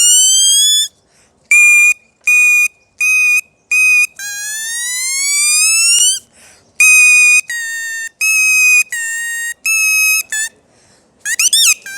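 A homemade mouth whistle (a tongue-controlled seeti) imitating a motorcycle. It plays long upward-gliding whines like an engine revving, twice, with runs of short steady toots at a few pitches between them, then a fast warbling trill near the end.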